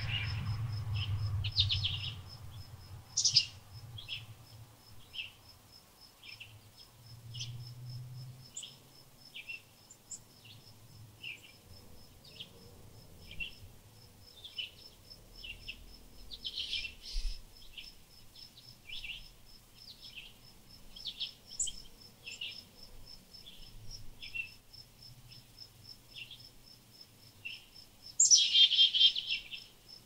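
Small songbirds chirping, short calls every second or so, over an insect's steady high, evenly pulsed trill. A few louder, rushier bursts stand out, the loudest near the end.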